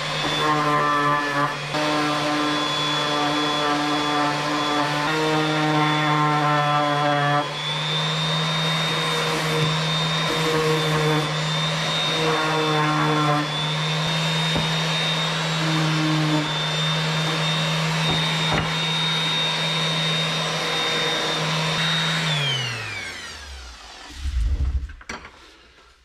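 Random orbital hand sander running steadily on a bare aluminium motorcycle part, smoothing the metal. About 22 seconds in it is switched off and winds down in pitch, and a single thump follows shortly before the end.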